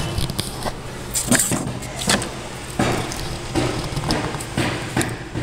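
Irregular handling noise: a string of sharp knocks, taps and rustles over a steady low hum.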